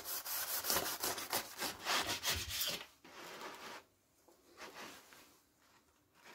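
A knife sawing through the crisp, baked yeast-dough crust and filling of a salmon koulibiac: a run of scratchy strokes for about three seconds, then fainter handling sounds as the cut halves are moved apart.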